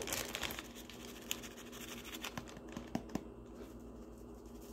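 A few faint, scattered ticks and taps from a container of ground black pepper being shaken over an open zip-top plastic bag.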